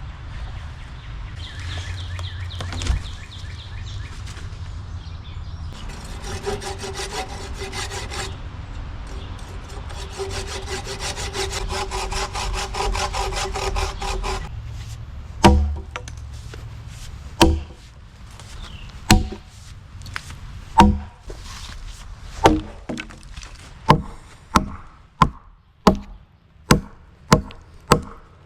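Hand saw cutting through a log with quick rasping strokes. It is followed by a dozen or so sharp strikes on wood from an axe or hammer, about two seconds apart at first and coming faster near the end.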